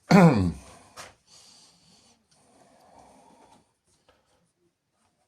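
A man's voice making a drawn-out, falling "uhh" of hesitation, then a single click about a second in and faint handling noise, then quiet.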